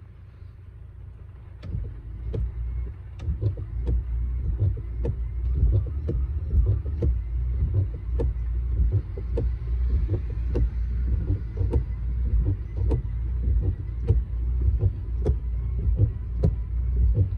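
Honda N-BOX flat wiper blades sweeping back and forth across the windscreen, with many short ticks and chatter over a steady low rumble of the idling car. The chatter comes from the worn, unreplaced passenger-side blade rubber.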